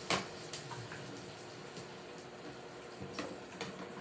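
Pinakbet vegetables simmering in a wok on an induction cooker, a faint steady hiss, with a few soft taps as pieces of bitter gourd are handled and added.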